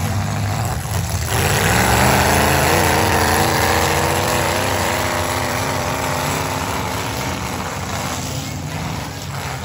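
Demolition derby car engines running. One revs hard from about a second in, holds high for several seconds, then eases off.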